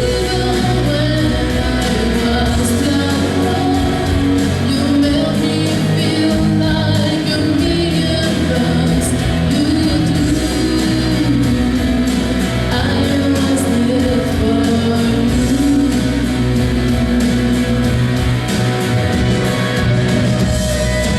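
A woman singing a song with instrumental accompaniment, in a large hall.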